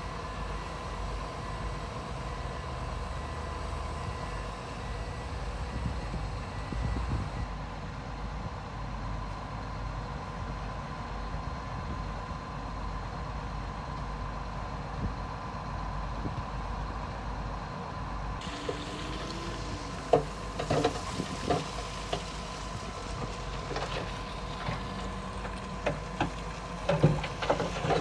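Heavy diesel construction machinery running with a steady low rumble. From about two-thirds of the way in, scattered knocks and clanks join it, growing busier near the end.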